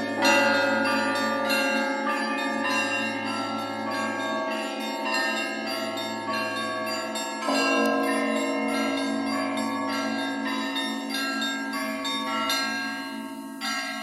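Church bells ringing a peal: several bells struck over and over, their tones overlapping and ringing on. A heavier stroke comes just after the start and again about halfway through, and the ringing grows a little quieter near the end.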